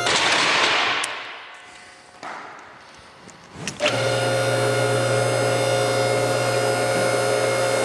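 Electric motor and pump of a car scissor lift's hydraulic power unit: a hissing rush in the first second that fades out, then the motor starts again about four seconds in and runs with a steady hum.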